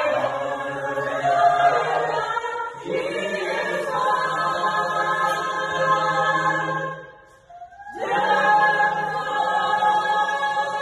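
Music: choir-like sung chords, each held for a few seconds before changing. The sound drops away briefly about seven seconds in, then comes back.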